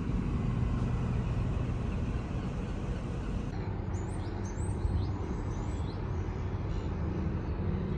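A steady low rumble with a noisy haze of wind and outdoor ambience. From about three and a half seconds in, birds chirp over it with several short, high, rising calls.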